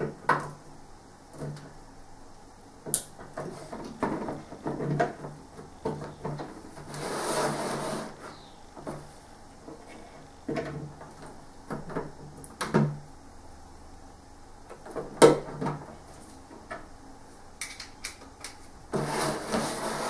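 Computer parts and packaging being handled during a PC build: scattered clicks and knocks, with two longer rustling or scraping noises, one about seven seconds in and one near the end.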